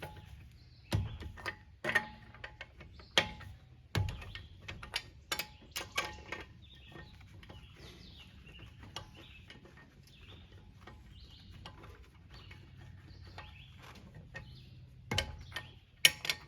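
Hand ratchet and socket clicking and clinking as lug nuts are run down snug on a car wheel. The clicks come in irregular bursts for the first several seconds, stop for a quieter stretch, and start again near the end.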